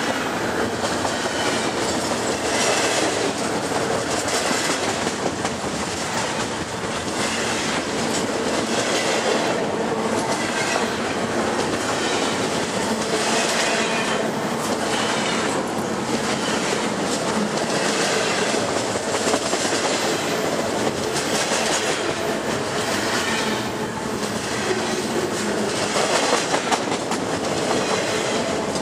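Double-stack intermodal freight cars rolling past at close range: a steady rumble and rattle of steel wheels on rail, with repeated clacks as the wheelsets go by.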